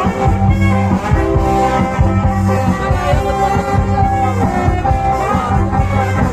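Cha-cha dance music played loud over a mobile sound system, with a heavy bass line and a steady beat.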